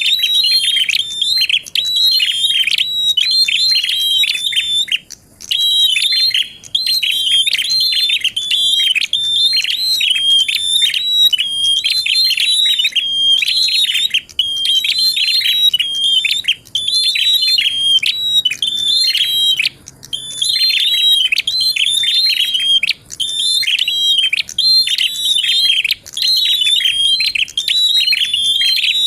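Prinia (prenjak) singing: loud, fast, repeated high chattering phrases, with a few brief pauses.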